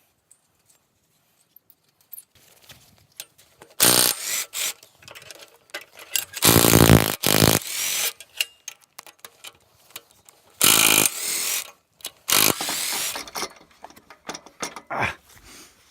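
Tools working on engine bolts: ratchet clicking and metal clatter in several short bursts, with quieter clicks and knocks between.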